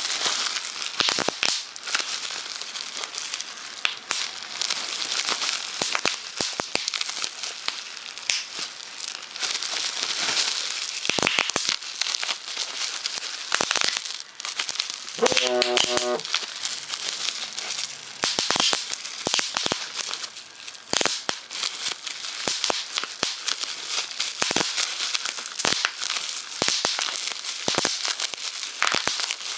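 Plastic bubble wrap being crinkled and handled, with frequent sharp pops of bursting bubbles throughout. About halfway through, a phone vibrates with a short buzz lasting about a second.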